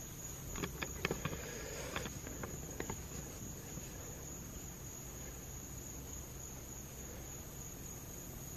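Night insects, crickets among them, chirring in a steady high-pitched chorus. A few light taps come in the first three seconds.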